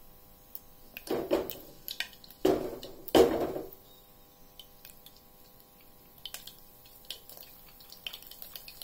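Peanuts tipped into hot oil in a steel pressure cooker in three short rattling bursts about a second apart, followed by scattered light pops of mustard seeds crackling in the oil.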